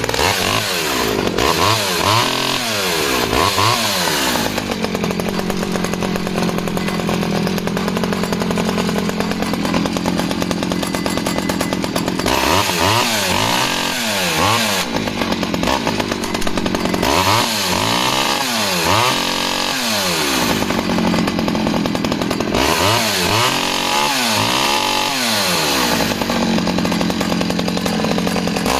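Vintage Stihl 009 top-handle chainsaw's small two-stroke engine running just after a choke start. It is revved up and down in repeated bursts, with longer stretches held at high revs between them.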